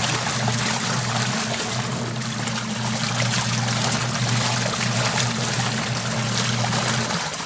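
Washing machine running loaded with water and clothes: a steady motor hum under continuous swishing water, cutting off about seven seconds in. It is a test run after a new gearbox and timer were fitted.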